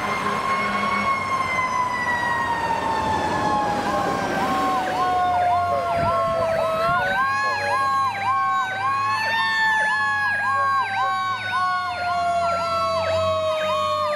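Fire engine sirens: one wails in long, slow falling sweeps that climb back up sharply, while a second cycles quickly up and down about twice a second.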